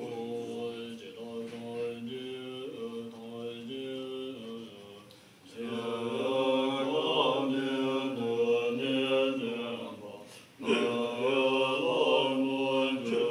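Tibetan Buddhist monks chanting together in unison, male voices on long held tones. The chant breaks briefly for breath about five seconds in and again about ten seconds in, coming back louder after the first break.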